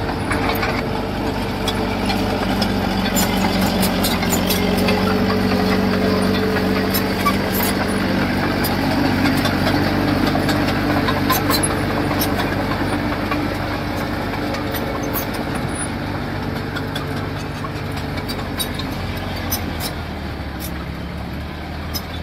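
Diesel engine of a heavy construction machine running steadily, its pitch shifting a little as it works, with scattered light clanks.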